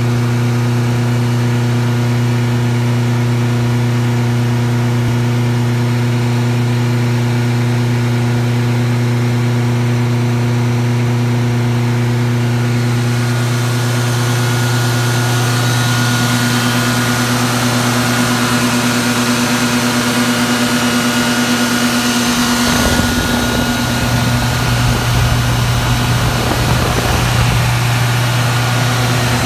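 1998 Generac 25 kW standby generator, its Fiat Allis 4.6L dual-fuel engine running at steady governed speed with a constant hum. About halfway through a rushing hiss joins, and the sound turns rougher and noisier in the last several seconds.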